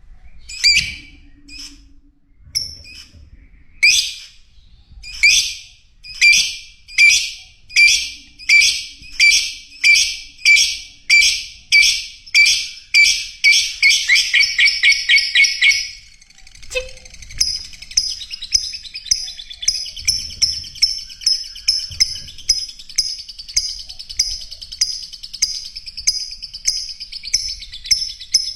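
Lovebird calling: loud, shrill chirps repeated about once a second and speeding up, then, from a little past the middle, a fast, steady run of high chatter.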